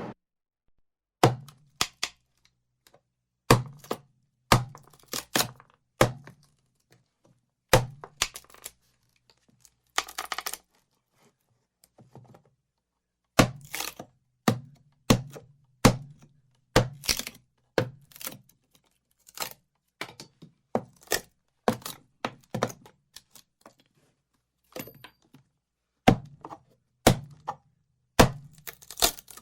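A series of sharp, hard knocks at irregular intervals of roughly a second, some in quick pairs, each with a short low ring after it. A longer scraping or crunching burst comes about ten seconds in.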